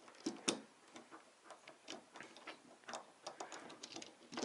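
Clicks from a hand-held glue-pull dent lifter being worked on a glued tab on a car's body panel, pulling out a hail dent: a sharp click about half a second in, then a run of lighter, irregular ticks.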